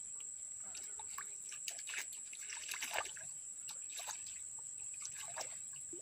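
Faint, irregular small splashes and drips of water in a shallow, muddy swamp pool, as a hooked climbing perch (ikan betok) stirs the water at the line. A steady high-pitched whine runs underneath.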